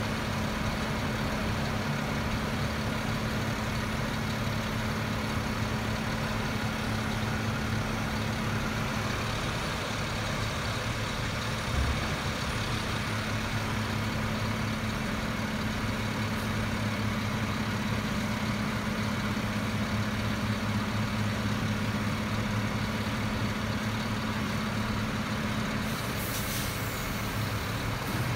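Heavy DSNY sanitation trucks with front snow plows running steadily as they plow the street, with a constant engine drone. A brief knock comes about twelve seconds in, and a short hiss comes near the end.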